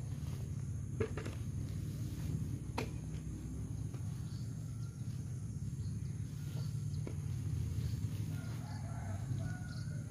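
Rooster crowing faintly over a steady low rumble, with a few sharp knocks.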